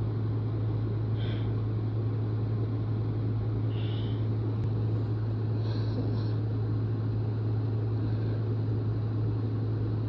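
A steady low background hum with a low rumbling noise under it, holding an even level throughout, and a few faint short hisses.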